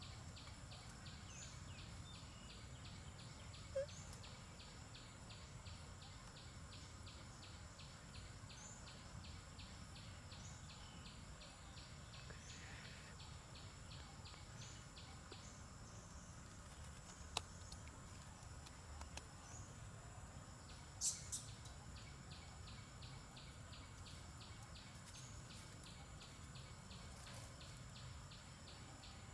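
Forest ambience: insects chirring in a rapid pulsing rhythm that stops for a few seconds about halfway through and then starts again, over a steady high insect whine, with short high bird chirps repeating every second or two. A few sharp clicks stand out near the middle.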